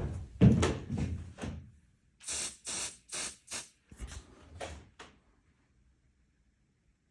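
A run of short handling noises: about four dull thumps, then about six short scrapes or rattles, stopping about five seconds in.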